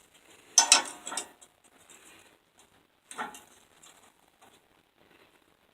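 Handling of steel flat bar and small hand tools during marking out: a cluster of sharp metallic clinks and scrapes a little over half a second in, another about three seconds in, and light ticks between.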